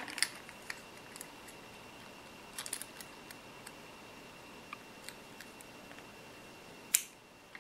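Sparse, faint clicks and light taps of a small metal bracket and a plastic coupler plate being fitted together by hand, with a sharper click near the end. A faint steady high tone runs underneath.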